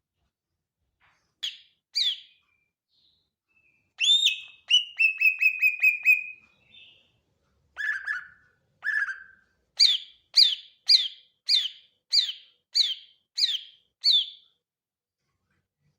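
Greater green leafbird (cucak ijo) singing. A few sharp whistled notes come first, then a rising note that breaks into a quick trill. Near the end comes a run of about nine falling notes, roughly two a second.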